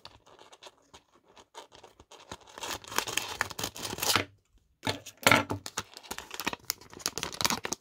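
Scissors cutting through the top of a plastic blind bag, a dense stretch of snipping and tearing in the middle, then the packaging crinkling as it is pulled open near the end.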